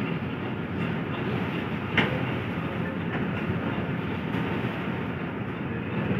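Steady rumble of a vehicle in motion, heard from on board, with one sharp click about two seconds in.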